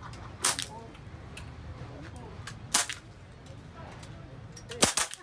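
Airgun shots: three sharp, short cracks about two seconds apart, over faint background chatter.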